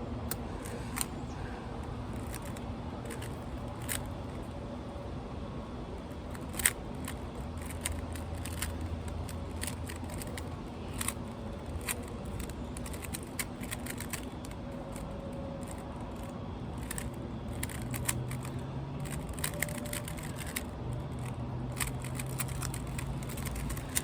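Rubik's cube being turned fast in a timed speedsolve: irregular plastic clicks and clacks of the layers, with a few louder snaps, over a steady outdoor background of wind and low hum.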